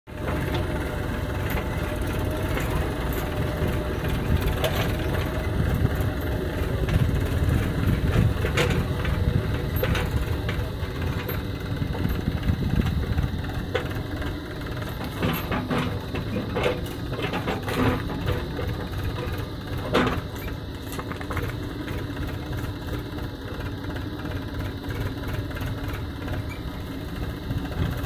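Diesel engines of a farm tractor and a JCB 3DX backhoe loader running steadily, with a few sharp knocks during the loading.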